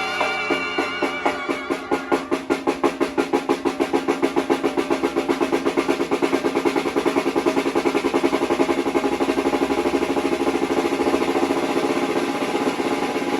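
Banda snare drum (tarola) playing a roll that starts as separate strokes and speeds up into a fast continuous roll.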